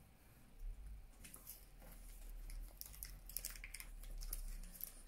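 Plastic wrapper of a Pulparindo tamarind candy being torn open and crinkled between the fingers: a faint, irregular run of crackles and small clicks.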